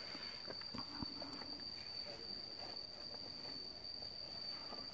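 Insects droning in the forest: one steady, unbroken high-pitched buzz. A few faint knocks come about a second in.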